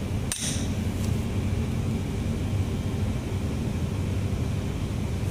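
Steady low machine hum in the background, even and unbroken, with a brief high hiss about half a second in.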